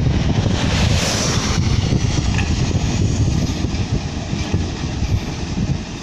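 Wind buffeting the microphone over the steady running of a Caterpillar 120H motor grader's diesel engine. A brief stretch of hiss comes about a second in.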